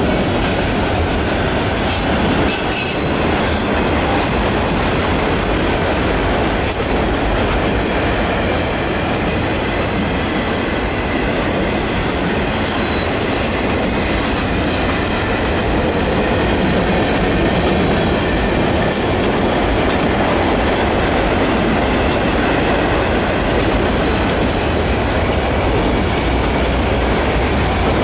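Autorack freight cars rolling past on jointed track: a steady rumble of wheels on rail, with a few sharp metallic clicks scattered through.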